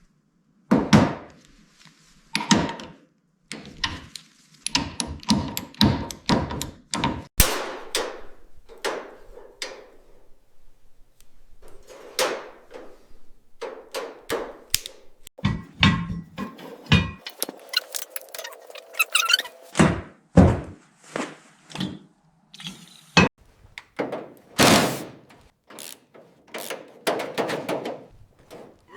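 Workshop knocks and thuds: a long, irregular series of sharp impacts, with a short rising whine about nineteen seconds in.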